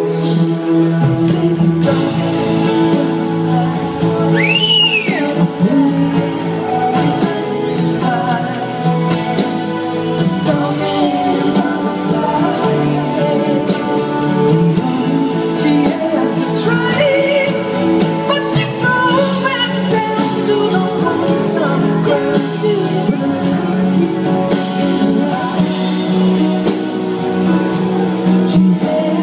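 Live rock band playing acoustic and electric guitars with drums and some singing, heard from within the audience.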